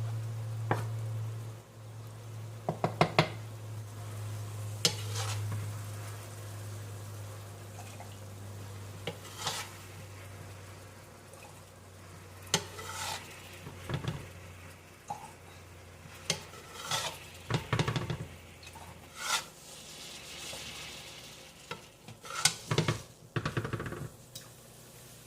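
Metal spoon clinking and scraping against a pan while the water drawn out of simmering ground beef is scooped off, with light sizzling. Under it runs a low steady hum that fades about three-quarters of the way through.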